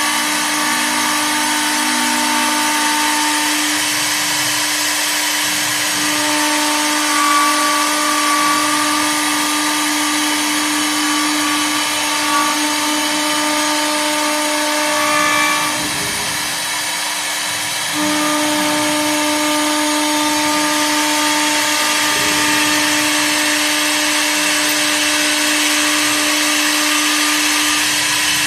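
CNC wood lathe with a 3.5 kW air-cooled router spindle, running with a steady tone over a constant hiss as the bit cuts flutes into a slowly turning wooden leg. A little past the middle the sound eases for about two seconds, then the cut resumes at the same pitch.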